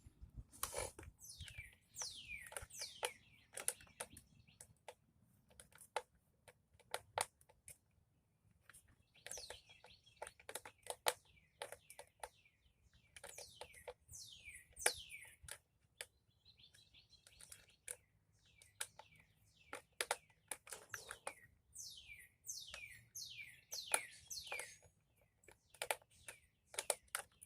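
Screwdriver work on a plastic appliance housing: irregular light clicks and ticks while screws are turned out, with many quick high chirps that fall in pitch, in runs of several, throughout.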